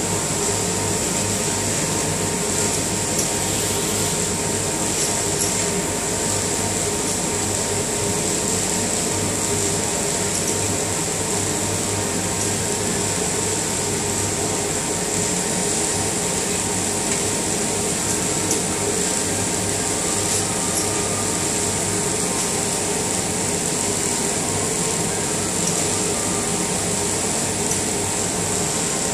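Automated pick-and-place machine with Ezi-Servo driven axes and a belt conveyor running continuously: a steady mechanical hum and whine with a constant high hiss.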